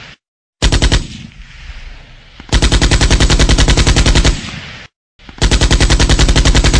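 Automatic gunfire, as a machine-gun sound effect: three bursts of rapid shots at about ten a second. There is a short burst about half a second in, then two longer bursts of nearly two seconds each, each trailing off in an echo and cut off by silence.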